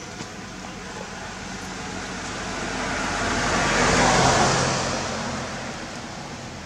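A road vehicle driving past, its tyre and engine noise swelling to a peak about four seconds in and then fading away.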